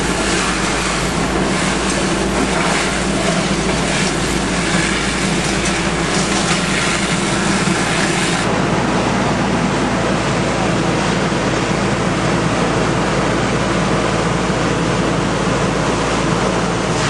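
Steady, loud fireground din: fire apparatus engines running under pumping load with a steady drone, mixed with the rushing hiss of hose streams and an aerial master stream spraying water.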